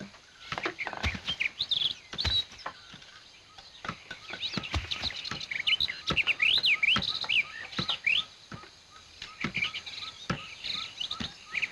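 Small birds chirping and twittering in quick rising and falling calls, busiest in the middle stretch, over scattered sharp clicks and crackles.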